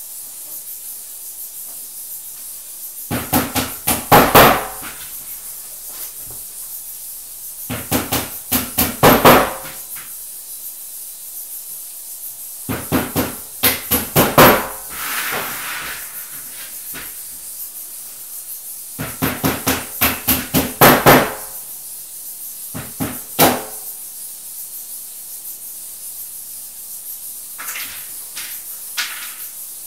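Hammer tapping on flat-pack furniture parts in about six bursts, each a run of several quick blows that grow louder toward its end, with pauses of a few seconds between bursts.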